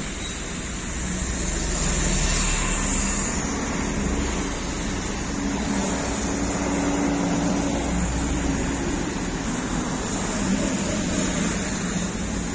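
Street traffic: motor vehicles driving past on a wet road, with a steady engine hum from a passing van and bus.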